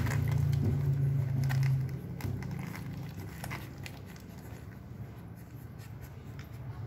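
Newborn Siberian husky puppies nursing, with scattered small wet suckling clicks. A low hum sits under the first two seconds and then fades.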